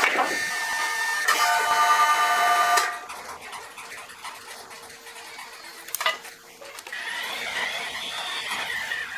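Sawmill saw cutting through timber with a high pitched whine for about the first three seconds, then dropping away. There is a sharp knock about six seconds in, and a fainter whine returns near the end.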